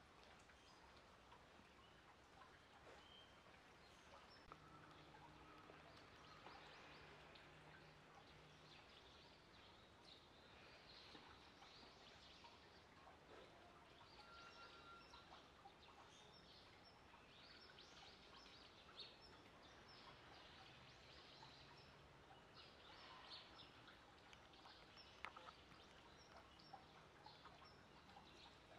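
Near silence: faint outdoor background noise with scattered faint high chirps.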